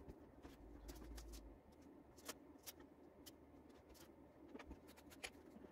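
Near silence with faint scattered clicks and light knocks as wooden discs are handled on a workbench while glue is spread and the pieces are rubbed together for a rub joint.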